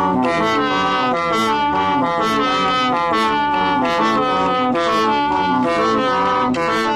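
Background music led by brass-like instruments, with a steady beat and notes changing several times a second.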